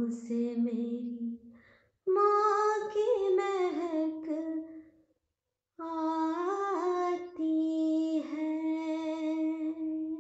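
A woman's voice singing a slow, wordless melody in three drawn-out phrases, the last ending on a long held note.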